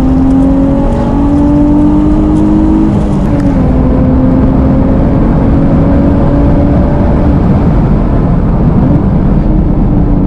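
Nissan 350Z's naturally aspirated 3.5-litre VQ35DE V6, heard from inside the cabin under acceleration. The engine note climbs, dips about three seconds in, then rises slowly again over a steady low rumble.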